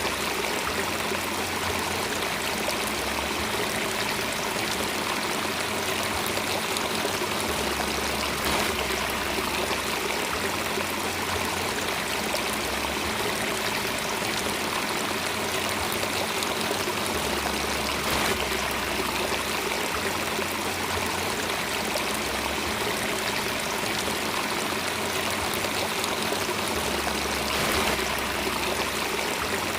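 Running water of a flowing stream, a steady continuous rush, with a low droning tone underneath that shifts pitch every few seconds.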